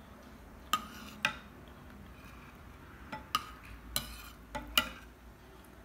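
Metal spoon stirring thick soup in a ceramic bowl, clinking against the bowl's side several times.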